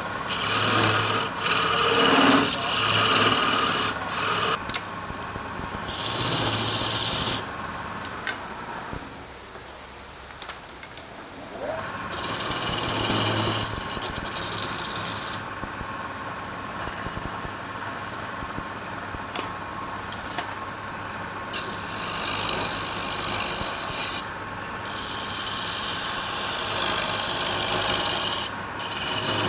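Wood being worked with an abrasive tool: scraping strokes in bursts of one to two seconds, separated by short pauses.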